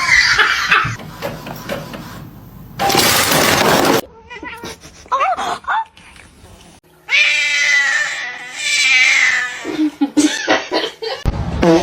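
Cats meowing and caterwauling in several short segments, with a long wavering yowl starting about seven seconds in. A loud hissing burst comes about three seconds in.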